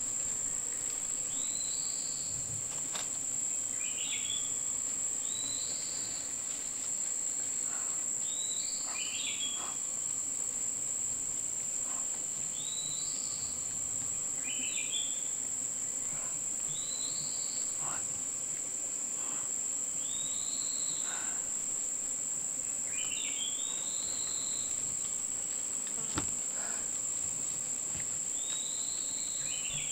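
Insects droning steadily at a high pitch in forest, with a bird repeating a short rising-and-falling call about every two seconds.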